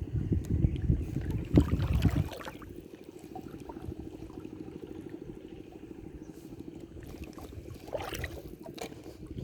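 River water trickling and splashing, with a stretch of louder low rumbling in the first two seconds and a few sharp crackles near the end.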